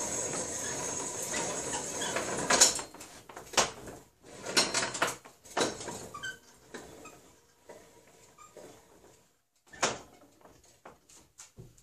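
Hand-cranked wooden reamer scraping steadily inside a steel rifle barrel, with a faint high squeal, stopping about two and a half seconds in. Then scattered clicks and knocks, the loudest two about two and a half and ten seconds in.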